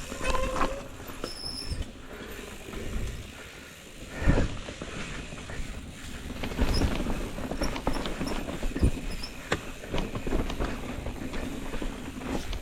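Mountain bike rattling and clattering down a rough downhill trail: tyres rolling over dirt and rocks, with many sharp knocks from the bike and a brief squeal about half a second in.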